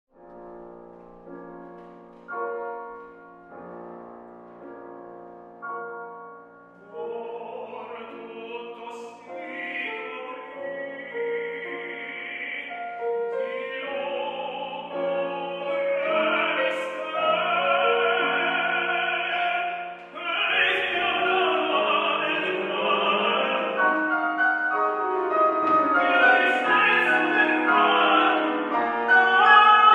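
Operatic singing with piano accompaniment. For the first seven seconds there are piano chords alone, struck one after another. Then a classically trained voice enters and the music grows steadily louder and fuller.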